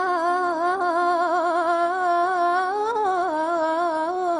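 A woman singing one long, unbroken melismatic line of a Gharnati-style mawwal, the held note wavering in quick ornamental turns and rising a little about three seconds in.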